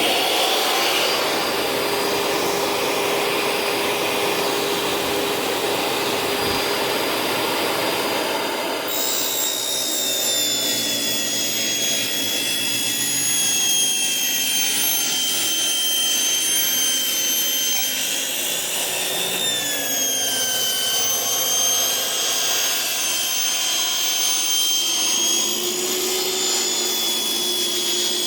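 10-inch jobsite table saw running at full speed with its motor whining. From about nine seconds in the sound changes, with high whining tones that shift in pitch as the blade cuts through a panel. The blade is pretty dull.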